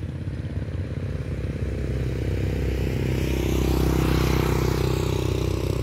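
A small motorbike passing close by: its engine and tyre noise swell to a peak about four seconds in, then fade, over a steady low rumble.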